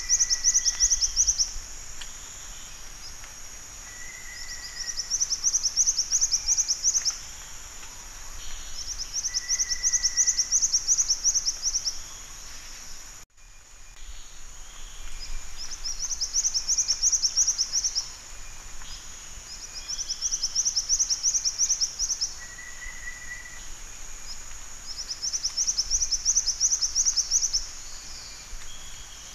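Black-winged flycatcher-shrike singing: repeated phrases, each a fast run of high, thin notes lasting two to three seconds, about every four to five seconds. A steady high insect-like hum runs underneath, and the sound cuts out briefly about halfway through.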